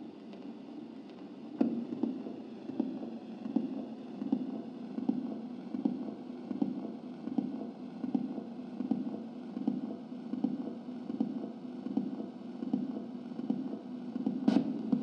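Electronic radio noise: a low hum that throbs a little more than once a second under a faint hiss, with a sharp click about a second and a half in and another near the end.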